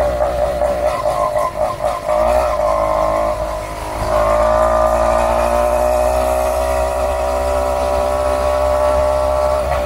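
An 80cc two-stroke bicycle engine running through an aftermarket exhaust pipe while riding. The note wavers and dips during the first few seconds, then from about four seconds in runs steady and louder as the bike picks up speed.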